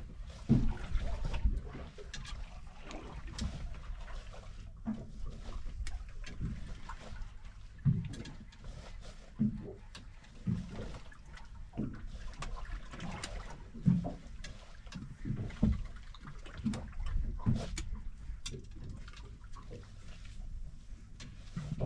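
Water lapping against the hull of a small drifting fishing boat, with irregular low slaps every second or so over a steady low rumble.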